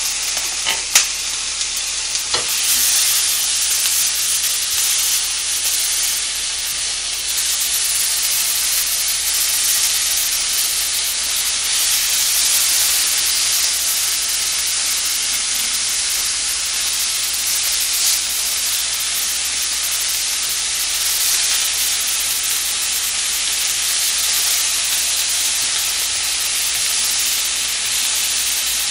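Pre-cooked smoked pork belly slices sizzling steadily in a frying pan while they are stirred with chopsticks, with a sharp click about a second in.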